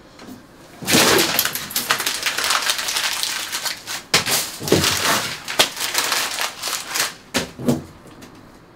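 Paper tearing and rustling as pinned notes and papers are ripped down from a corkboard by hand. It starts suddenly about a second in with a loud rip, then goes on as a run of crackling tears and snaps that die away near the end.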